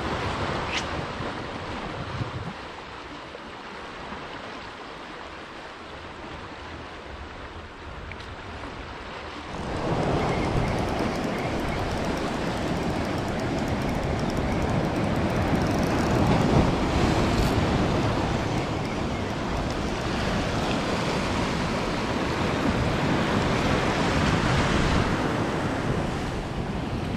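Sea swell washing onto a pebble shore, a steady rush of surf mixed with wind on the microphone. It gets suddenly louder about ten seconds in and stays that way.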